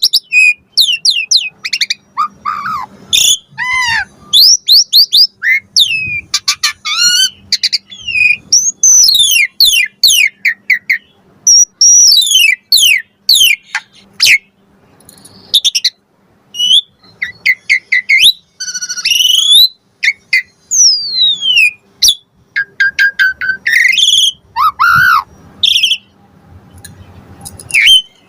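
Asian pied starling (jalak suren) singing a long, varied song of loud whistles, rising and falling glides and rapid chattering runs, broken by short pauses and full of mimicked phrases.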